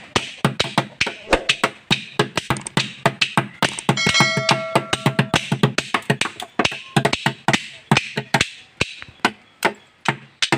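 Children's imitation chenda melam: a plastic jerry can beaten rapidly with sticks in a fast, driving rhythm, with small wooden pieces clapped together alongside. A steady high tone sounds briefly about four seconds in, and the beating thins out and gets quieter near the end.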